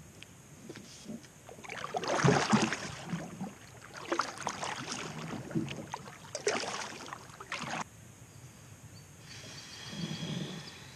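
Kayak paddle strokes pulling through the water, each a swishing splash, about four strokes a couple of seconds apart, with a softer stretch near the end.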